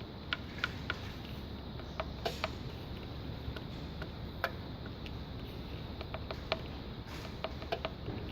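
Scattered light clicks and taps, irregular and a few a second, over a steady low background hum.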